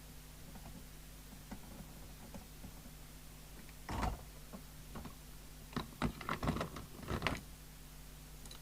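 Small tools and objects being handled on a workbench: a knock about four seconds in, then a quick run of clicks and rattles, over a steady low hum.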